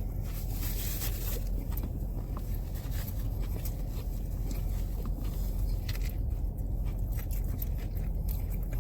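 A person biting into and chewing a large fried chicken sandwich, with light rustling and scraping of handling, over a steady low hum.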